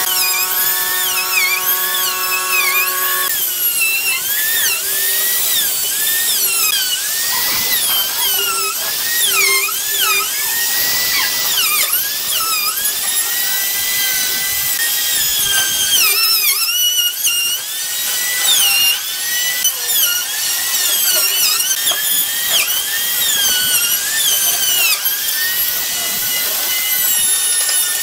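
Electric trim router cutting a circular groove into a solid-wood tabletop. For the first three seconds or so it runs with a steady high whine, then its pitch dips and recovers over and over as the bit bites into the wood and the motor slows under load.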